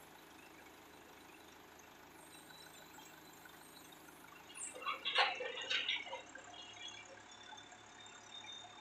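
Tilt-bed tow truck's winch and hydraulics being worked to let a car down the bed. There is a low steady background at first, then a burst of clanking and hissing about five seconds in, followed by faint steady running with a thin whine.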